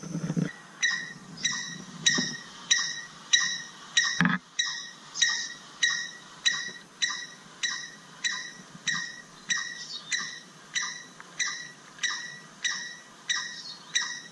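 Recorded call of the little wood-rail (Aramides mangle) played back from a handheld speaker to call the bird in: an evenly spaced series of short, high notes, about one and a half a second. A single knock about four seconds in.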